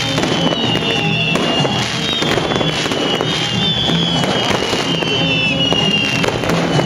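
Ground fireworks crackling rapidly and continuously, with high whistling tones sliding slowly downward, over music.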